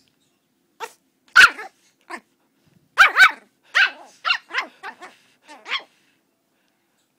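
Pomeranian puppy barking: a run of about a dozen short barks, coming faster toward the end, then stopping about six seconds in.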